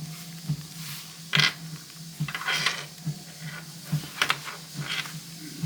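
A leather planner cover being handled: scattered light clicks and rustles, a handful over a few seconds, over a steady low hum.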